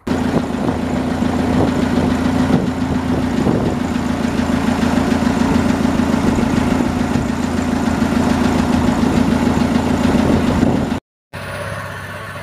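Boat engine running with a steady, loud drone. It cuts off abruptly about eleven seconds in and gives way to a quieter engine hum.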